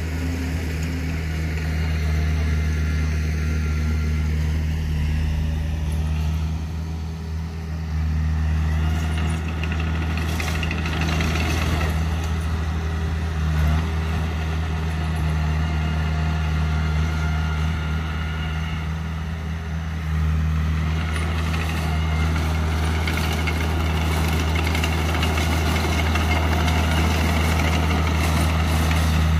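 Komatsu D20 crawler bulldozer's diesel engine running steadily as the dozer works the dirt. The engine note swells and eases a few times, with some short clanks mixed in.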